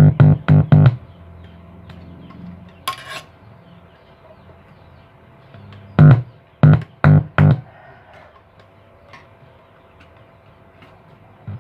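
Music with a keyboard sound played through a car audio power amplifier under test, coming as short loud bass-heavy notes in groups of about four with quieter stretches between. The amplifier's sound is not normal: the fault it came in for is a hoarse, rough output.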